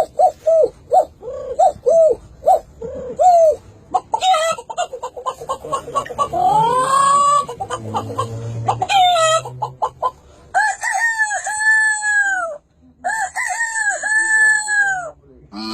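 Chicken sound effects: quick, evenly repeated clucks, then a rooster crowing twice, each crow about two seconds long.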